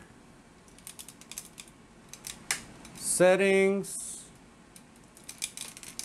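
Computer keyboard typing: quick runs of key clicks, about a second in and again near the end.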